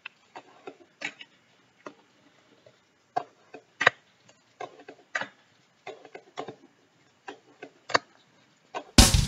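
A fingerboard clacking and tapping on a hard desktop: irregular sharp clicks and knocks from the deck and wheels landing and popping, a few louder ones among them. Near the end, loud rock music with drums and guitar starts suddenly.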